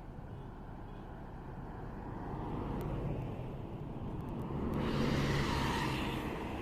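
A large road vehicle, most likely a bus, driving past close by: its engine hum builds, is loudest about five seconds in with a rush of engine and road noise, then begins to fade.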